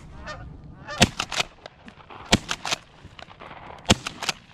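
Three shotgun shots, about a second and a half apart, each followed by a couple of quick fainter cracks, with geese honking around them.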